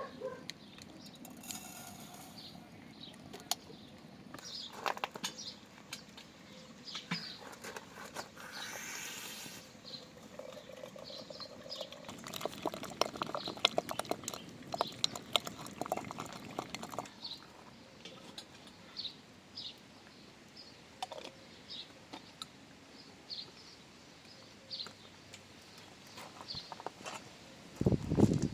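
Short, high bird chirps repeating over a faint outdoor background, with scattered clicks and a few seconds of clattering or rustling in the middle. A loud low thump comes near the end.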